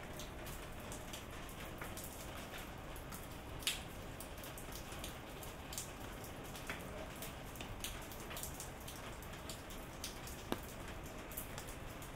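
Steady rain: a low, even hiss with many separate drops ticking through it. Two sharper drops stand out, a little under four seconds in and again late on.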